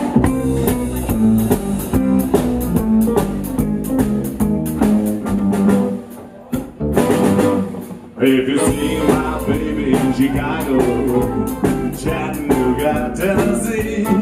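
Live band playing the song's intro, with drums, upright bass and guitar. About six seconds in the band drops to a quieter break, then comes back in full about two seconds later.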